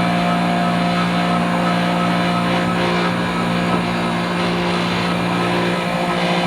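Manitowoc ice machine running, its compressor and fan making a loud, steady hum with a strong low tone. The machine is still freezing and has not yet switched over to the ice-dropping cycle.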